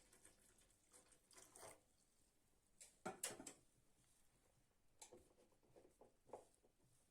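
Near silence broken by a few faint knocks and clicks of objects being handled, the loudest cluster about three seconds in.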